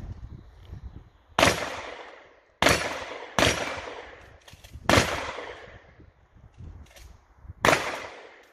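Five shotgun shots fired one at a time at uneven intervals, each with a sharp crack followed by a fading echo.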